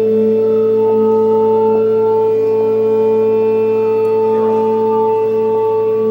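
Many instruments holding a sustained drone on the notes A and E across several octaves. A higher note drifts slowly down in pitch about four seconds in.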